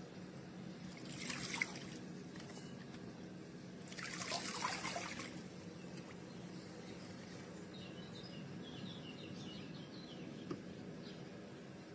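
Water trickling and splashing in two short bursts, about a second in and again around four seconds in, over a steady low hum.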